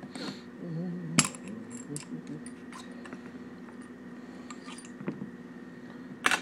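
Metal hand tools and a .410 shotshell hull clinking and knocking as the hull is resized by hand: a sharp loud click about a second in, another near the end, and small ticks between.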